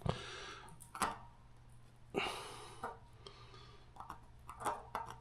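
Scattered light clicks and clinks of metal transmission parts being handled and pried out with a hook during a teardown, with a short scraping stretch a little past two seconds.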